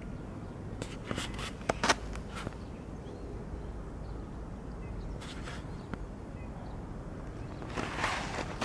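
Footsteps rustling and crackling in dry leaf litter: a cluster of sharp crackles about a second in, a single one past the middle and a louder run near the end, over a steady low rumble.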